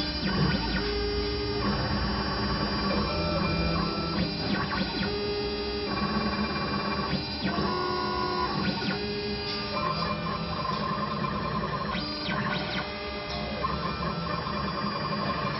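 ZK-3030 mini CNC router running, its stepper motors whining in steady tones that jump to a new pitch every second or so as the axes change speed and direction, over background music.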